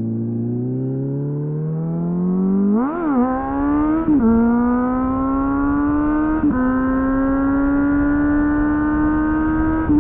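Suzuki GSF 600 Bandit inline-four running through a loud aftermarket slip-on exhaust, its note climbing steadily as the bike accelerates. There is a quick rev up and back down about three seconds in, and brief dips in the note about four seconds and six and a half seconds in.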